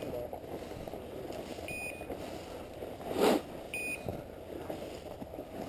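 Short high electronic beeps repeating about every two seconds, typical of a bird dog's beeper collar sounding while the dog holds point. Under them is a steady low background noise, with a brief loud rustling burst about three seconds in.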